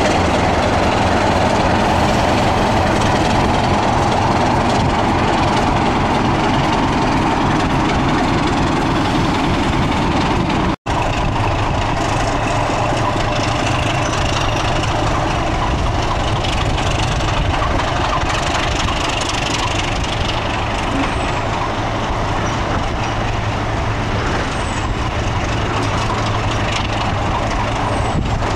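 British Rail mainline diesel locomotive engines running with a loud, steady, heavy drone as a Class 26 locomotive moves slowly along the platform. After a brief cut about eleven seconds in, a diesel locomotive hauling coaches gives a steadier low engine hum.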